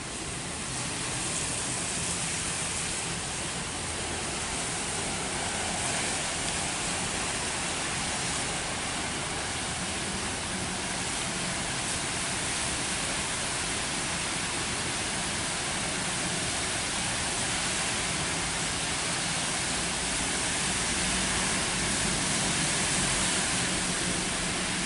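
Heavy rain falling, a dense, even hiss that holds steady throughout.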